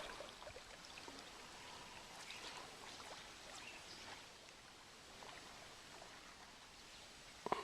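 Faint, steady rush of flowing river water, with a brief louder sound near the end.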